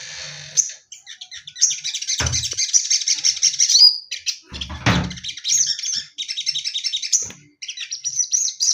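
Sogon bird singing: rapid chirping and trilling phrases, with two dull thumps about two and five seconds in.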